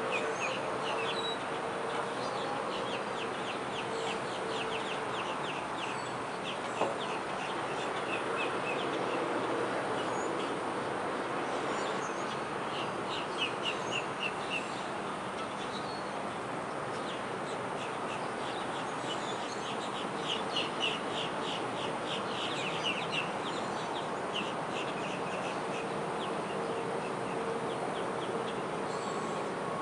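Outdoor ambience: a steady wash of background noise with birds chirping in quick runs of short high notes, several times over. A low steady hum comes and goes, and there is a single click about seven seconds in.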